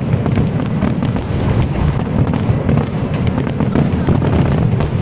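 Fireworks display at full barrage: a dense, continuous run of overlapping bursts and crackles over a heavy rumble of booms.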